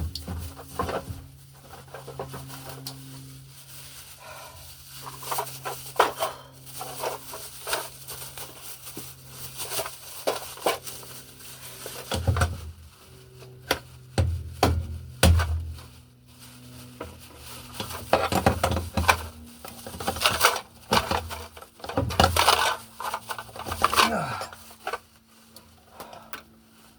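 Irregular clicks, knocks and rustling of someone shifting position and handling tools and materials, with a faint steady low hum underneath.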